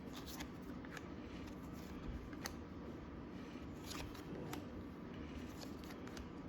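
Faint rustling and light clicks of trading cards being slid and flipped through by hand.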